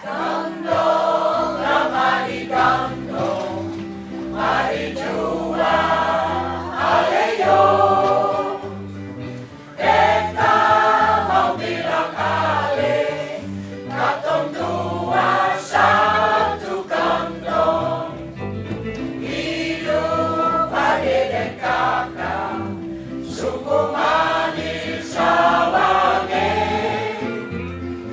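A choir singing a song in phrases, with instrumental accompaniment holding steady low notes underneath.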